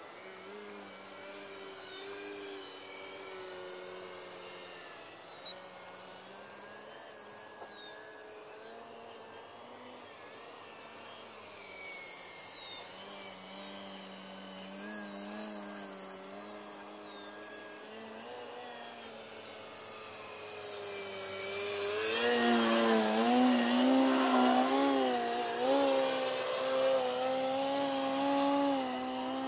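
Brushless electric motor and 12x6 APC propeller of an Extreme Flight 48" MXS RC aerobatic plane, a whine whose pitch rises and falls with the throttle. It is fainter while the plane flies at a distance, then gets louder about 22 seconds in as the plane hovers nose-up close by, its pitch jumping up and down.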